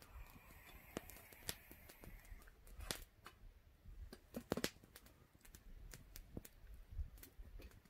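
Campfire wood crackling: scattered sharp pops and clicks at irregular intervals, one louder pop a little after four seconds in.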